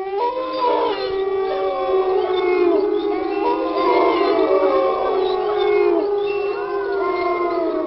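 A pack of wolves howling in chorus: several long howls at different pitches overlap, sliding slowly up and down.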